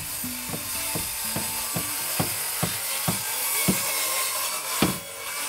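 Power drill at work on a wooden wall frame, with a string of sharp clicks about two or three a second.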